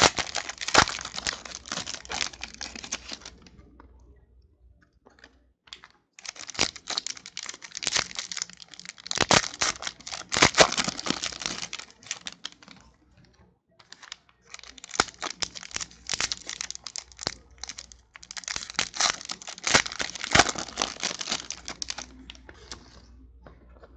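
Foil wrappers of 2013 Panini Certified football card packs being torn open and crinkled in hand, in four bouts of crackling with short pauses between them.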